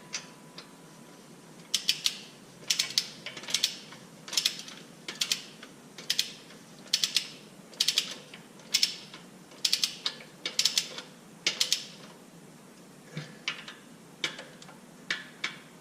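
Hand socket ratchet being worked on a transmission-mount bolt: a quick run of pawl clicks on each return stroke, about once a second. After a short pause near the end come a few softer strokes.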